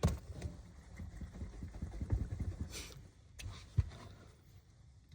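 Sniffing and close handling noise: irregular low thuds and rustles with a sharp knock at the start and another just before four seconds in, and a brief hiss a little before three seconds in.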